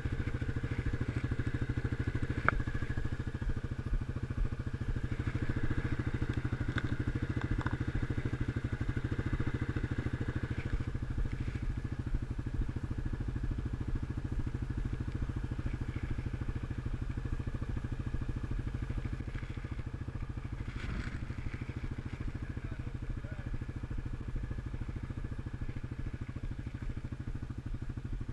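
ATV (quad) engine idling steadily, with a single sharp click about two and a half seconds in.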